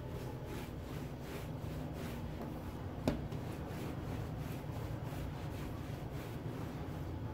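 Hands rolling and pressing soft yeast dough on a countertop: repeated soft rubbing strokes over a low steady hum, with one sharp click about three seconds in.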